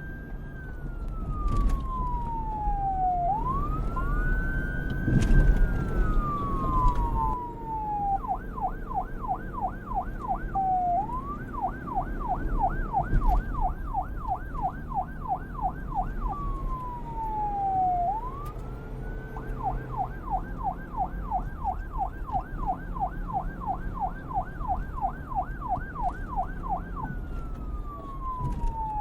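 Electronic police siren alternating between a slow wail and a fast yelp. It starts on a slow wail that rises and falls over a few seconds, switches to a rapid yelp of about three cycles a second around eight seconds in, drops back to a brief wail twice, and ends on a falling wail. A low rumble runs underneath.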